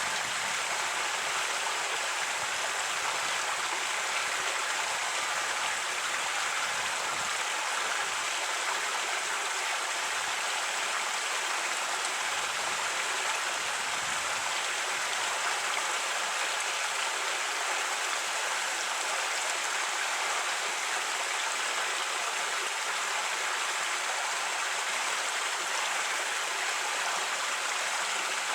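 Creek water running and babbling over rocks, a steady even rush.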